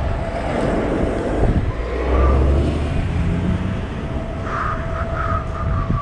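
Wind rumbling on the microphone and road noise from riding an e-bike along a street with traffic, heaviest about two seconds in, with a thin steady whine underneath. A few short chirps come near the end.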